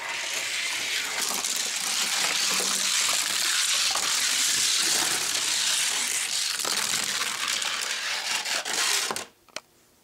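Two Hot Wheels 1:64 die-cast cars, a Bone Shaker and a T-Bird Stocker, rolling fast down a gravity race track: a steady rolling rattle of small plastic wheels on the track with scattered clicks. It cuts off sharply about nine seconds in, and a couple of separate clicks follow.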